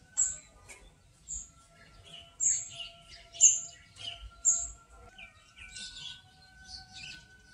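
Small birds chirping: short, sharp high-pitched notes about once a second, with a faint steady tone underneath.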